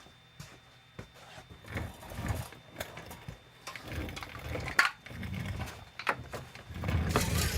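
Scattered sharp clicks and knocks of objects being handled, with a few short low rumbles between them.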